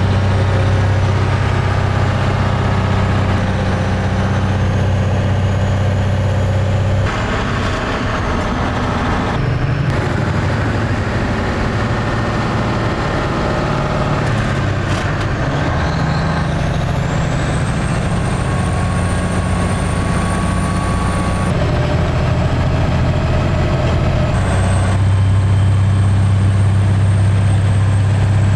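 A truck's engine running steadily, heard from inside the cab, with a faint high whine that rises about halfway through. The sound changes abruptly several times where the shots are cut.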